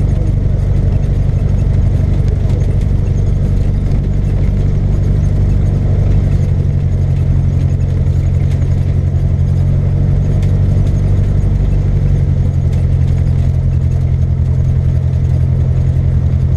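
Cessna 172's piston engine and propeller running steadily at low power while taxiing on grass, heard from inside the cabin.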